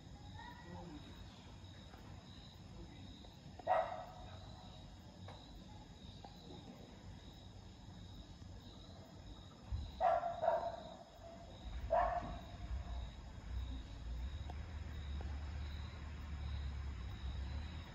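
A small dog barking: one bark about four seconds in, then three more in quick succession a few seconds later. Crickets chirp steadily underneath, and a low rumble comes in during the second half.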